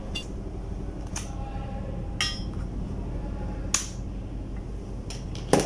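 Rotary mode-selector switch of an electric fan heater clicking about six times as it is turned through its positions, over a low steady hum while the small blower fan runs.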